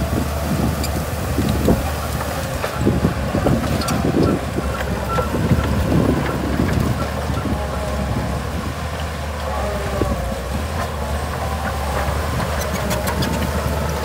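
Shantui DH17C2 bulldozer's diesel engine running steadily under load while the machine pushes soil and trees, with irregular low thuds and scattered sharp clicks and cracks.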